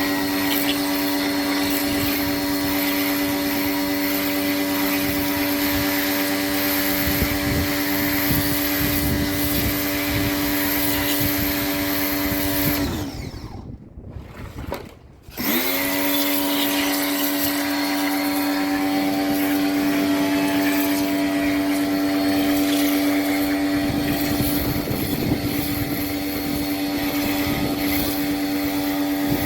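Electric motor running at a steady pitch with a whine. It winds down and stops about 13 seconds in, then spins back up about two seconds later and runs steadily again.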